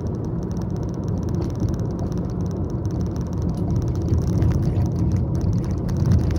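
Car driving on a city street heard from inside the cabin: steady road and engine noise, growing a little louder near the end.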